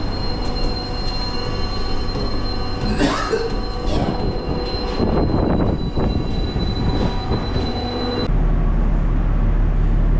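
Car ferry's machinery running with a steady drone and a high whine, echoing in the metal stairwell off the car deck, with footsteps and knocks as people climb the stairs. About eight seconds in the whine stops and a steady low rumble takes over.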